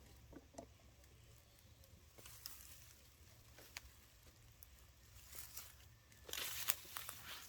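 Faint scattered rustles and clicks of dry vegetation, turning into louder, denser crunching and rustling about six seconds in.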